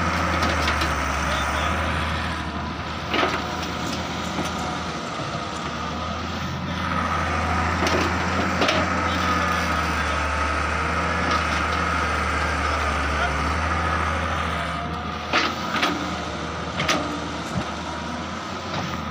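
Daewoo excavator's diesel engine running steadily under load, with a steady high whine over its hum and several short knocks as the bucket digs and dumps sandy soil.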